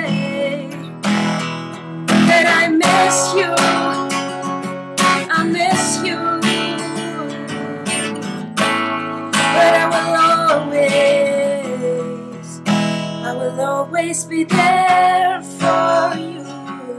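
Acoustic guitar strummed as accompaniment, with a woman's voice singing long, held notes over it.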